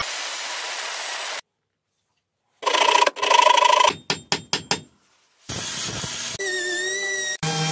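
Angle grinder grinding a steel axe head, in several short stretches broken by brief silences, its whine wavering in pitch. About halfway through comes a quick run of about five sharp knocks.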